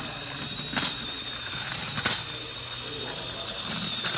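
A tiny 1/24-scale SCX24 RC pull truck runs steadily under load as it drags a weighted pulling sled over dirt: its Micro Komodo brushless motor and small gears make a mechanical whir with a thin high whine. Two sharp clicks come about one and two seconds in.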